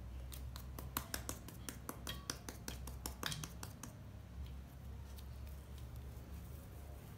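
A quick run of small clicks and taps, several a second, that stops about four seconds in: hands pressing and shaping soft cookie dough on a stainless steel plate.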